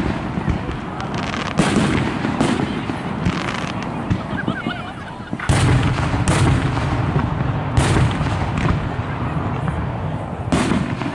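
Aerial fireworks shells bursting: a series of sharp bangs a second or more apart, about seven in all, with a continuous low rumble rolling on between them.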